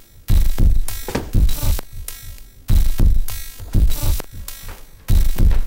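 Background music with a steady drum beat: bass drum thumps and cymbal hits repeating at an even pace.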